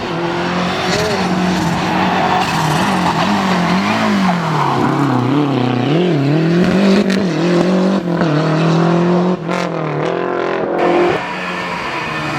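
Rally car engine revving hard, its pitch climbing and dropping repeatedly through gear changes and lifts, with a few sharp cracks a little before the car settles near the end.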